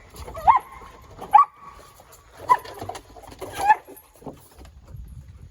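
Border collie barking, four sharp barks about a second apart, with low knocking underneath.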